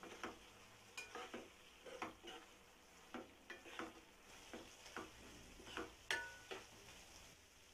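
A spatula stirring chicken liver masala in a non-stick kadai, with faint scraping and tapping against the pan about twice a second over a light sizzle. Two of the strikes ring briefly, one about a second in and one near the end.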